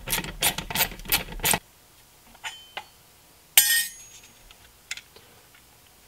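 Socket ratchet clicking in an even run, about four clicks a second, as the small bolts holding the headlight projector's lens are backed out. It stops about a second and a half in. Then come light clinks and one sharp clatter of hard parts about three and a half seconds in, as the lens half is pulled free.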